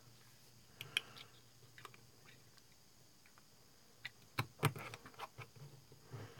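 Faint clicks and taps from a small paint bottle and a toothpick being handled on a workbench: a few around a second in, then a closer cluster from about four to five and a half seconds.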